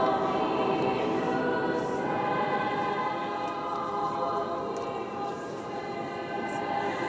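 Girls' choir singing sustained chords in a large stone basilica, the held notes ringing in the church's long reverberation. The singing eases a little about five seconds in, then swells again near the end.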